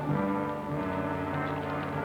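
Orchestral film score with brass holding sustained chords, changing notes about a second in.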